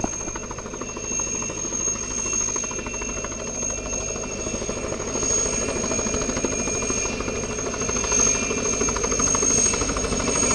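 Mi-2 helicopter's twin GTD-350 turboshaft engines running with a steady high-pitched whistle, the whistle typical of this type, over the fast chop of the main rotor. It grows slightly louder toward the end.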